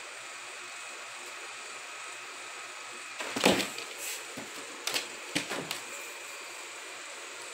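A cat pouncing and scrabbling against a fabric-covered mattress: a loud scuffle about three seconds in, then a few shorter knocks and scrapes, over a steady hiss.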